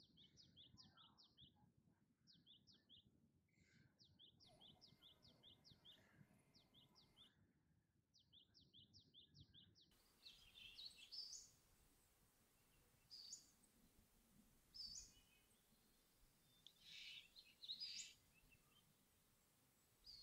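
Faint birdsong. First a bird repeats quick series of short, falling high notes, several series in a row; about halfway through the background changes and only scattered single chirps follow.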